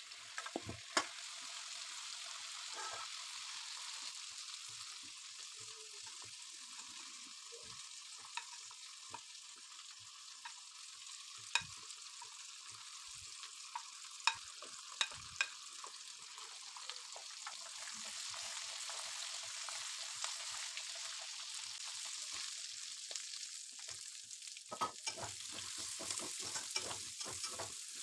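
Hot oil sizzling steadily in an aluminium kadai, with the occasional sharp clink and scrape of a metal spatula. First bottle gourd pieces fry, then whole spices and dried red chillies go into the oil about halfway through. Near the end, sliced onions are stirred briskly, with quick repeated scraping against the pan.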